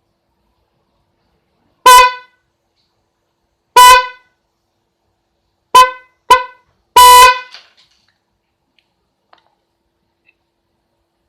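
Single high-tone snail (spiral) electric horn, wired straight in without a relay, sounding five short honks of one steady pitch: two honks about two seconds apart, then two quick blips, then a slightly longer honk.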